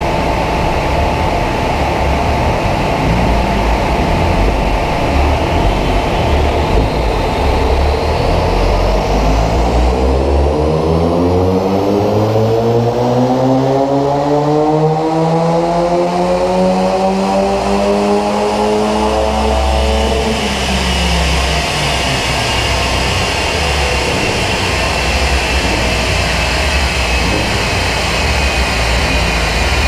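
VW Scirocco's Stage 1-tuned 2.0 TSI turbocharged four-cylinder on a chassis dyno power run: the engine note climbs steadily in pitch for about ten seconds as it pulls up through the revs under full load, then drops away sharply when the throttle is lifted. A steady rushing noise with a high whine continues throughout.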